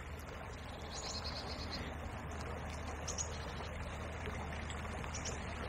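Steady, even hiss of a small river's current flowing past the bank, with rain falling.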